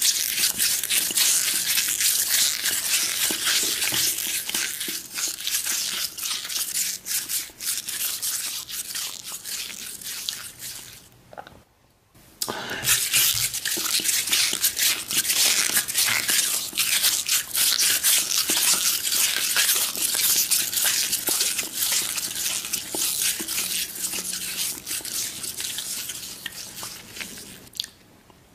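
Close-miked ASMR eating sounds: a dense, wet crackling chew. It runs in two long stretches with a brief break near the middle.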